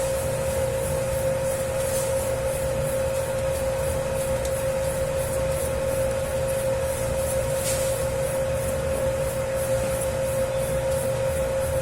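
Dough-kneading machine running with a 10 kg batch of pizza dough. It makes a steady motor hum with a constant whine and a fast, regular swishing, and there are a couple of louder strokes along the way.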